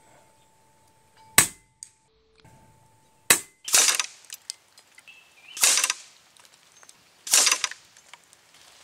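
Daystate Red Wolf .177 PCP air rifle shooting at steel knock-down targets. There are two short, sharp cracks about two seconds apart, then four harsher, slightly longer smacks of pellets hitting steel and wood, each about a second and a half apart.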